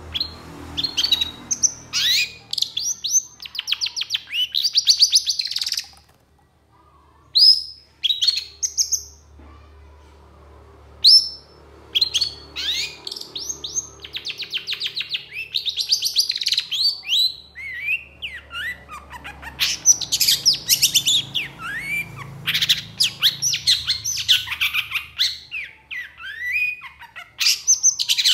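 Long-tailed shrike singing vigorously: fast rattling trills and quick harsh chattering notes in long runs, with brief breaks about six and ten seconds in.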